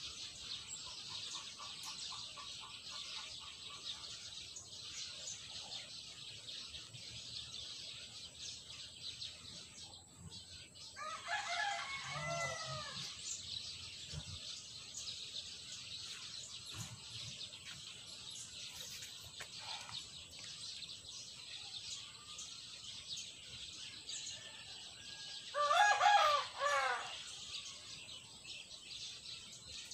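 A rooster crowing twice, about eleven seconds in and again near the end, each crow lasting a second or two, over a steady high-pitched background hiss.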